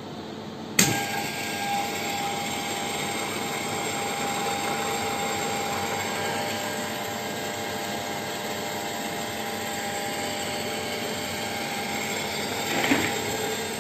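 Aircraft vertical gyro switched on: a sharp click about a second in, then the gyro rotor's electric motor running with a steady high whine over a whirring noise, as the rotor comes up toward its running speed of about 20,000 RPM. A brief louder rattle comes near the end.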